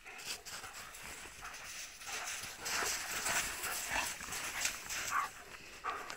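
German shepherd's paws crunching through deep snow as it runs toward the camera carrying a stick, the quick crunching footfalls getting louder from about two seconds in.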